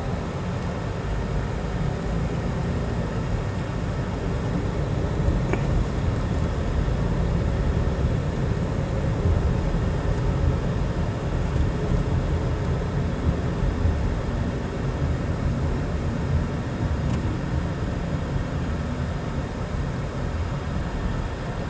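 Steady low rumble of a car driving along a highway, road and engine noise heard from inside the cabin, swelling slightly in the middle.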